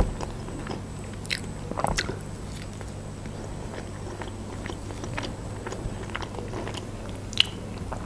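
Close-miked chewing of grilled chicken, with a few short sharp clicks scattered through.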